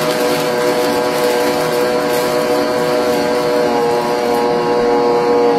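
Electric stand mixer running steadily at a constant speed, its motor giving a steady hum with an even whine as the beaters churn thick cake batter in the bowl.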